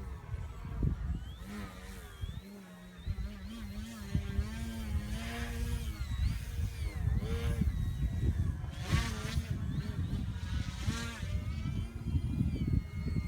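Electric RC aerobatic plane's motor and propeller buzzing in flight, the pitch wavering and gliding up and down as it manoeuvres and the throttle changes, swelling louder several times as it passes. Wind buffets the microphone with a low rumble throughout.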